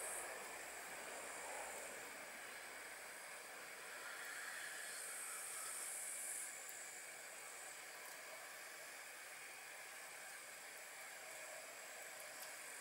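Faint outdoor ambience: a steady, soft hiss, with a higher hiss that fades at the start and returns for a couple of seconds in the middle.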